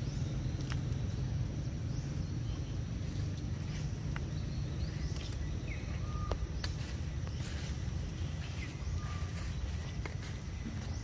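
Outdoor forest ambience: a steady low rumble with scattered light clicks and crackles, plus a few short, faint chirps.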